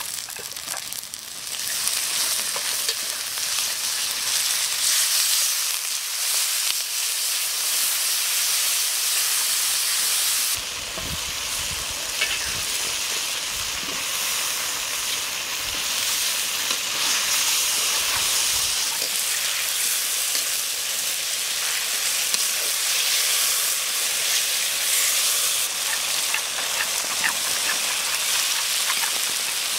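Steady sizzle of vegetables and spices frying in oil in an iron kadai, with stirring.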